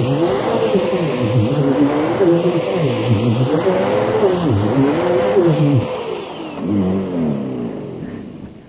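Bissell CleanView upright vacuum cleaner running: a steady motor whine with a lower sound that repeatedly swoops up and down in pitch. About six seconds in the whine stops and the motor winds down, fading out near the end.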